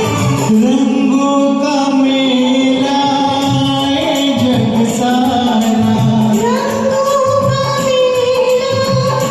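Karaoke singing of a Bollywood film song over a recorded backing track, with long held notes.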